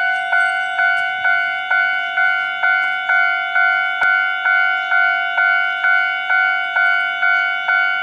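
Railway level-crossing warning bell ringing in a steady, even rhythm of about two strokes a second, each stroke a bright ringing tone that fades before the next: the signal that a train is approaching.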